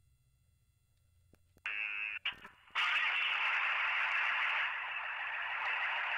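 Near silence, then a short buzzy crackle, then a steady static-like hiss from about three seconds in.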